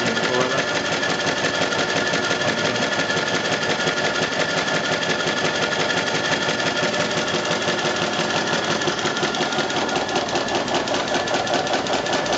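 3.5-inch gauge Kerr Stuart 'Tamar' live-steam model locomotive running on a test stand: a fast, even mechanical beat over a steady hiss.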